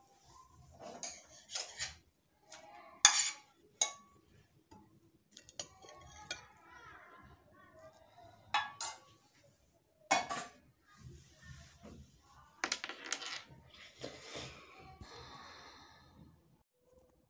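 Dishes and cutlery clinking and knocking on and off, with a few sharp knocks standing out.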